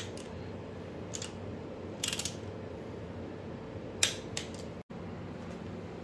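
Torque wrench working the L19 head stud nuts on a VQ37VHR cylinder head: a few sharp metallic clicks, the loudest about four seconds in, and a short run of quick ratchet ticks about two seconds in, each click marking a nut coming up to its set torque. A steady low hum runs underneath.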